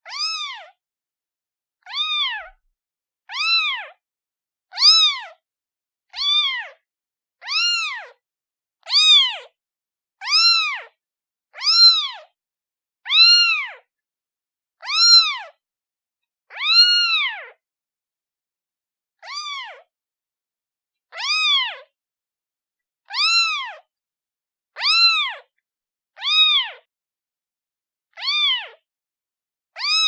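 Kitten meowing over and over in short, high mews, roughly one every second and a half with silence between. Each mew rises and then falls in pitch.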